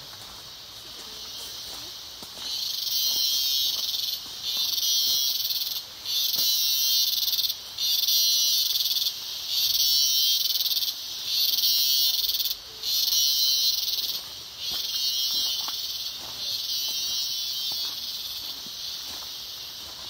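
Loud buzzing of rainforest insects, in regular pulses about a second and a half long with brief breaks between them, settling into a steadier drone near the end.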